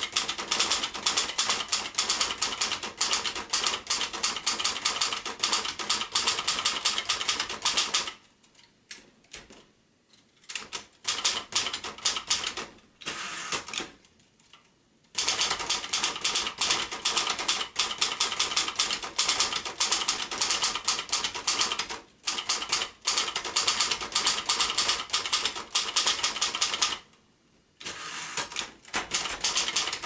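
1972 Royal Mercury ultraportable manual typewriter, built by Silver-Seiko, being typed on: a fast, steady clatter of type bars striking the platen, broken by a few short pauses.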